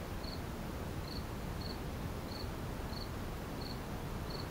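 A cricket chirping: short, faint, high chirps repeating roughly every two-thirds of a second, about seven in all, over a steady background hiss.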